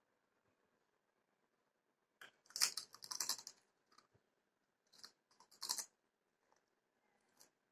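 A child crunching a potato chip: two bouts of crisp crunching, the first about two seconds in and the second about five seconds in.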